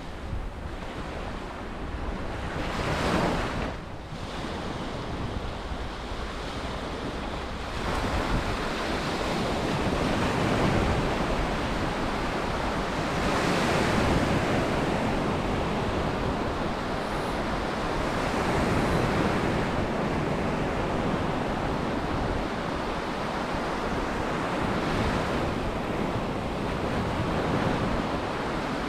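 Sea surf on a beach, waves breaking and washing in one after another, swelling about every few seconds. Wind gusts buffet the microphone with a low rumble.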